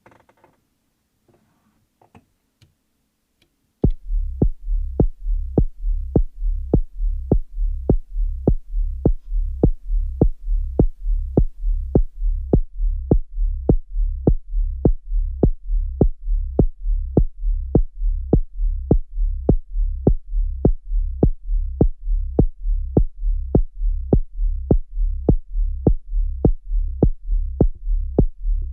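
Elektron Digitone playing a deep synthesized kick drum on a steady four-on-the-floor pulse, about two beats a second, starting about four seconds in after a few faint clicks.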